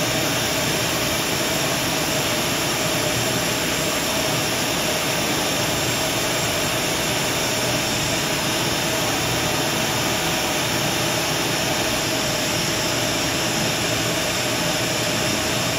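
Shop vacuum running for dust collection on a small drum sander: a steady rushing noise with a steady hum underneath.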